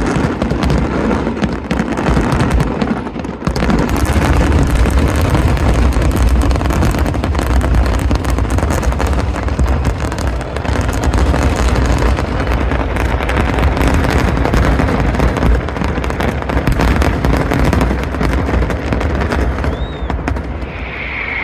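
Large aerial fireworks display: a dense, continuous barrage of shell bursts with deep booms under rapid crackling, thinning briefly about three seconds in. A high whistling sound comes in near the end.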